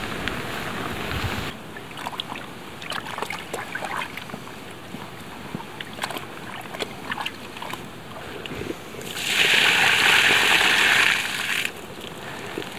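Water and clothes sloshing in a rolled-up dry bag used as a makeshift camp washing machine, with scattered crinkles and rustles of the bag's fabric. A louder, even swishing lasts about two and a half seconds, starting about nine seconds in.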